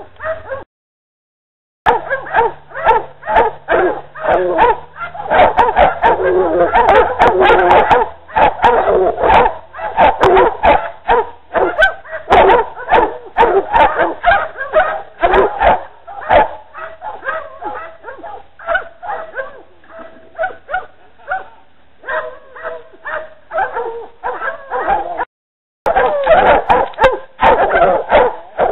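Pack of hog dogs barking and yelping rapidly over one another, baying a feral hog in thick brush. The sound cuts out completely twice, briefly.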